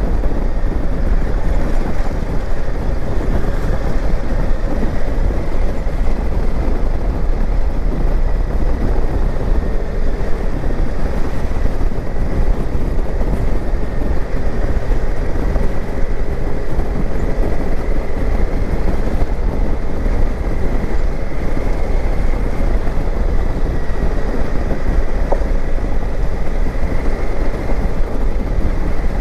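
Honda Africa Twin motorcycle riding at a steady pace, its engine running under a loud, constant rush of wind and road noise.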